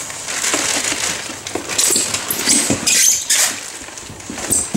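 Clear plastic packing bag crinkling and rustling in irregular bursts as hands dig through it inside a cardboard box and pull out coiled welding cables. The loudest crinkles come around the middle.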